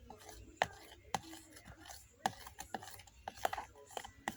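Spoon knocking and scraping against a bowl in irregular sharp clicks while a glue-and-detergent slime mixture is stirred and scraped together.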